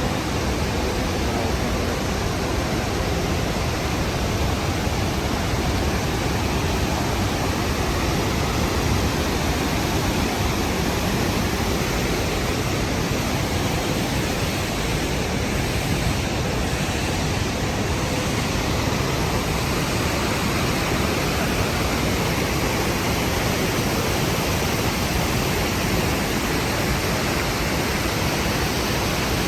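Rhine Falls waterfall: a steady, loud rush of falling water.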